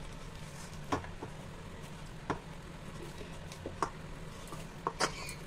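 Hands kneading stiff whole-wheat dough in a stainless steel bowl: quiet pressing with a few scattered soft clicks and knocks against the metal bowl.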